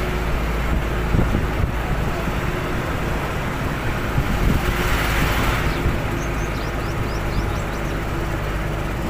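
Diesel truck engine running steadily on the road, a constant low hum with road noise. About halfway through there is a brief swell of hiss, followed by a quick run of short high chirps.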